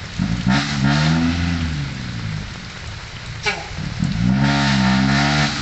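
Dump truck's diesel engine revving hard in two long surges, pitch rising then sagging, with a lull between them, as the truck strains to move in soft rain-soaked ground. A short falling whistle sounds just before the second surge.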